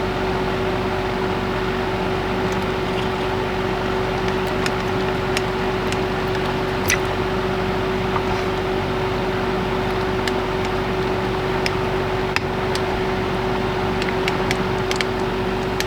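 Steady machine hum with one strong constant tone, like an electric appliance or ventilation motor running, with a few light clicks and taps scattered through it.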